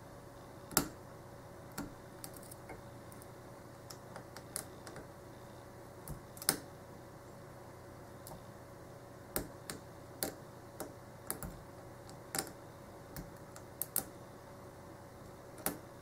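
Small, sharp metallic clicks and ticks of a lock-pick hook and tension wrench working the serrated pin stacks inside an Ace A527 padlock's keyway, coming irregularly, often a second or so apart, over a faint steady hum.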